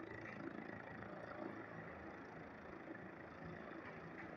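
Helicopter running on a rooftop helipad with its rotor turning slowly, heard from a distance as a steady, faint hum.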